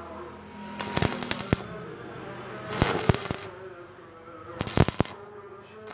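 Stick welding arc on square steel bar, crackling and spattering in loud bursts about every two seconds, with a quieter wavering hum between the bursts.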